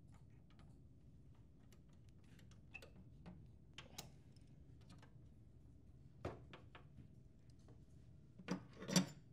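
Small plastic clicks and taps as parts are handled and fitted onto the side of a printer finisher unit, with a sharper knock about six seconds in and two louder knocks near the end.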